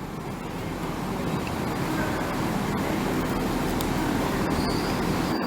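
Train moving through the station, a steady low drone that grows louder over the first couple of seconds and then holds.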